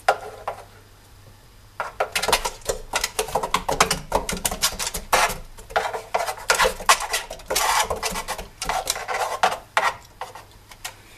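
Cat running in a homemade 95 cm cat exercise wheel: a rapid, irregular clatter and knocking of paws on the wheel and the turning wheel itself, starting about two seconds in.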